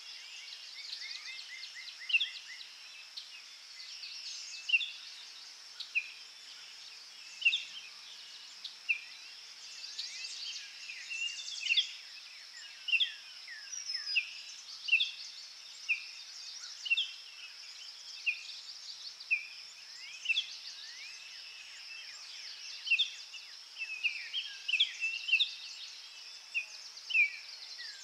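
Nature ambience of birds calling in short, sharp, falling chirps about once a second, over a steady high drone of insects.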